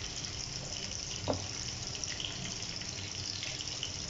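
Diced onions and green peppers sizzling in a wok while a silicone spatula stirs them, with one short knock of the spatula about a second in.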